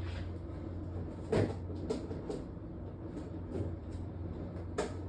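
Kitchen handling noises: two sharp clacks, about a second and a half in and near the end, and a few lighter knocks, over a steady low hum.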